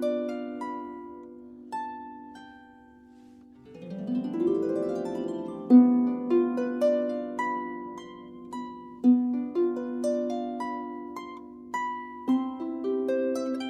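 Harp played solo: plucked notes ring and fade over a repeated low bass note, with a quick upward glissando about four seconds in.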